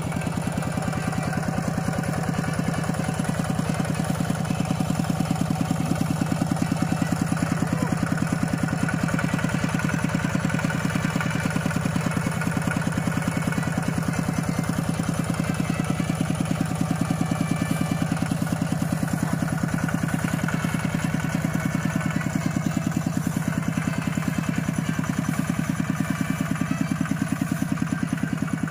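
Single-cylinder diesel engine of a two-wheel walking tractor running steadily at idle, a fast, even chugging that does not change.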